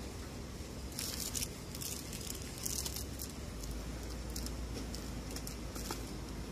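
Plastic-wrapped chocolate bar packs crinkling in short bursts as they are handled in a plastic shopping basket, over a steady low hum.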